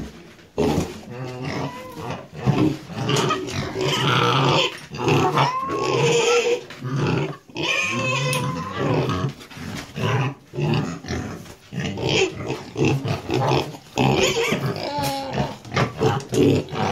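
Cats growling and grunting over and over in low, pig-like phrases, with now and then a rising, yowl-like cry.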